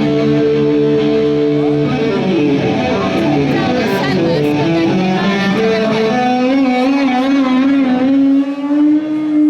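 Amplified electric guitar playing live, with ringing held notes, some sliding phrases in the middle and one long sustained note near the end.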